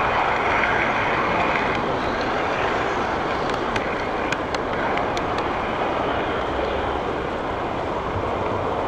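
Steady rolling rumble of a garden model railway car running along its track, heard from a camera riding on the car, with a few sharp clicks in the middle.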